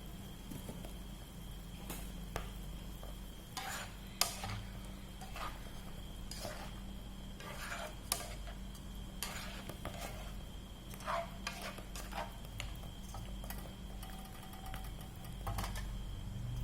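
A metal utensil stirring food in a pan, with irregular clinks and short scrapes against the pan, over a faint steady high whine.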